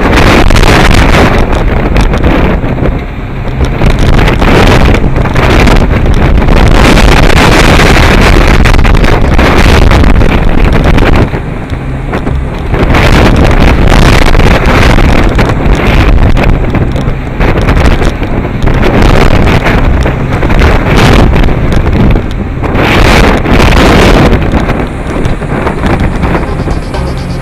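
Gale-force wind buffeting the microphone, a loud rough rushing noise that surges in gusts and eases briefly about three seconds in and again around twelve seconds in.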